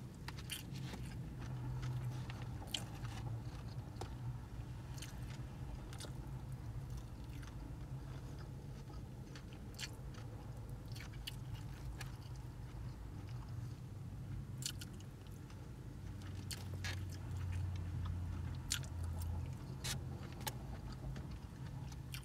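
Close-up chewing and biting of a person eating chow mein and fried takeout food, with scattered short sharp clicks and smacks, over a low steady hum.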